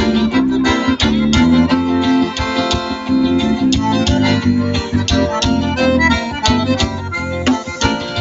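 Live forró band playing through a stage sound system: accordion leading over bass and guitar, with a steady beat.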